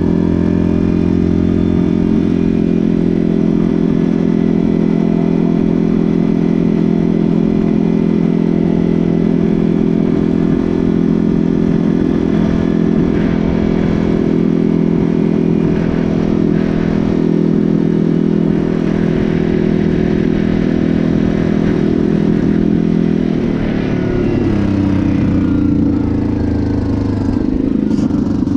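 Yamaha Grizzly ATV's single-cylinder four-stroke engine running steadily at cruising speed. About 23 seconds in the engine note drops and wavers as the ATV slows and turns.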